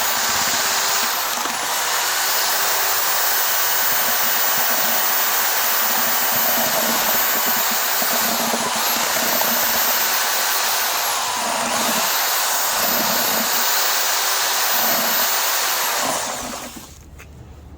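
Electric drill with a paddle running at speed, mixing a bucket of Portland cement mortar; its pitch dips briefly under load a few times and recovers, and the motor stops near the end.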